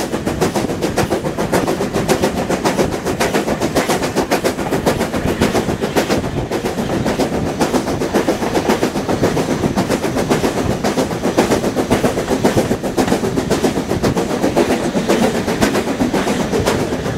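Heritage steam locomotive running along the line, heard from beside the engine: a loud, steady, rapid train of beats and mechanical clatter.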